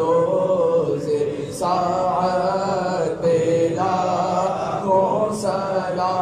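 A man chanting Islamic devotional verses into a hand-held microphone, in long, drawn-out melodic phrases with short pauses for breath between them.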